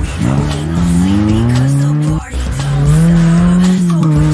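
Off-road racing buggy engine revving hard, its pitch climbing for about two seconds, breaking off briefly, then held steady at high revs.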